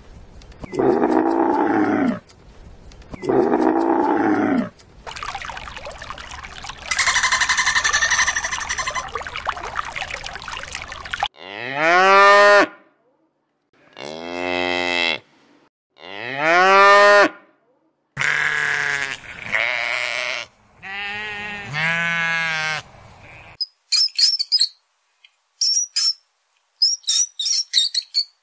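A run of animal calls. A camel groans twice, then comes a stretch of noise, then cattle moo five times in loud drawn-out calls, the first three rising in pitch. Short high squeaks follow near the end.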